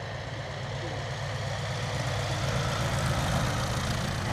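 Fokker Dr.I triplane replica's propeller engine running at low power as it lands and rolls out, with a steady low drone that grows louder as the plane nears and passes close.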